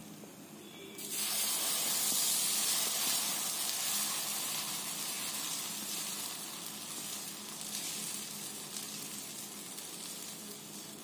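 Kodo millet dosa batter sizzling on a hot dosa griddle as it is poured and spread out with a ladle. The sizzle starts suddenly about a second in, is loudest over the next few seconds, then slowly dies down.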